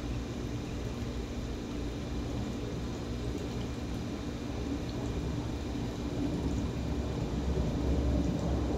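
Steady low background rumble with a faint hum, growing a little louder near the end.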